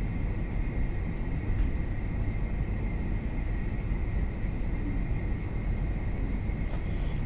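Steady low rumble inside the carriage of a Lastochka (Siemens Desiro RUS) electric train, with a faint steady high whine running under it.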